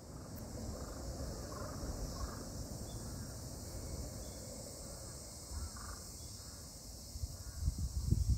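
Wind rumbling on the phone's microphone, gusting loudest near the end, over a steady high hiss of insects, with a few short bird calls.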